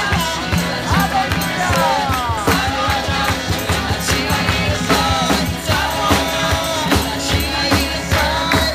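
A live band playing an upbeat worship song through outdoor PA speakers: singing over guitar and a steady drum beat.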